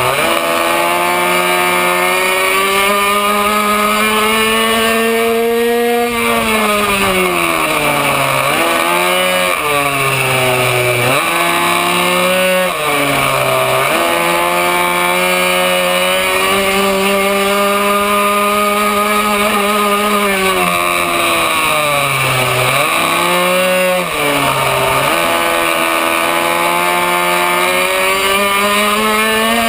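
Racing minibike's small two-stroke engine at full chat from an on-board camera, its revs climbing for long stretches and dropping sharply several times as the rider backs off for corners.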